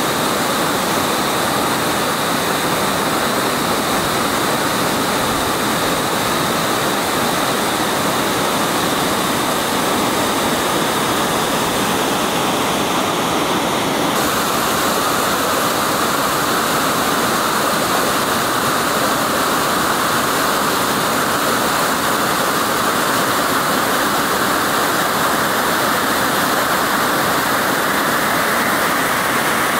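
Vloman Kill's first falls: water pouring over rock and churning at the foot of the falls in a loud, steady rush. The tone of the rush shifts slightly about halfway through.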